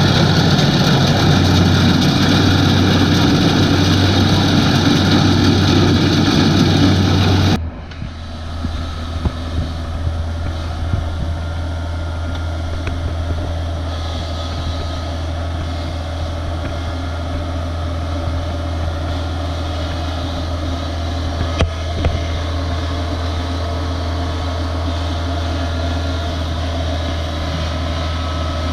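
Kubota DC-70 combine harvester's diesel engine and threshing machinery running steadily and loudly. About a third of the way in, the noise drops suddenly to a quieter, steady engine hum.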